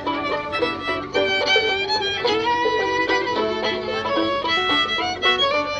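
Old-time string band playing an instrumental passage, a fiddle carrying the melody with sliding notes over plucked string accompaniment.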